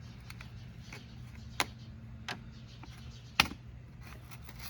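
Clicks and knocks from handling a motor oil bottle and funnel: three sharp clicks, the loudest about three and a half seconds in, over a steady low hum.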